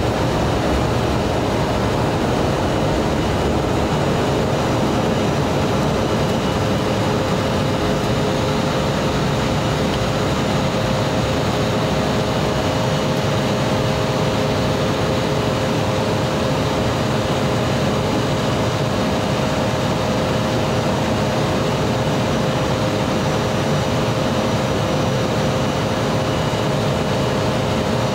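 Cabin noise of an Embraer 175 on takeoff, heard from a seat over the wing: its turbofan engines running at takeoff thrust under a steady rush of air noise, from the end of the takeoff roll through liftoff into the climb. A steady hum of a few pitched tones in the middle of the range grows stronger about twelve seconds in.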